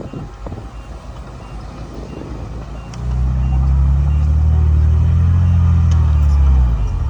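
Bulldozer's diesel engine rumbling, then revving up hard about three seconds in, holding at high revs as the machine pushes dirt, and dropping back just before the end.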